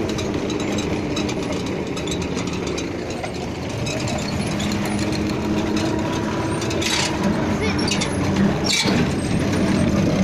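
Diesel tractor engine running steadily while pulling a seed drill across a field, with two sharp knocks near the end.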